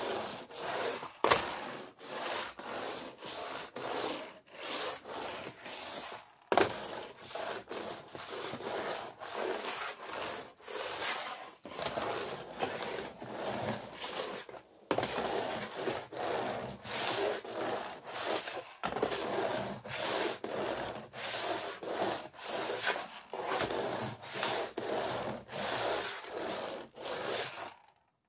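Vacuum cleaner floor nozzle pushed back and forth across a floor: rhythmic scraping strokes, about two a second, with no motor running. The strokes break off briefly three times.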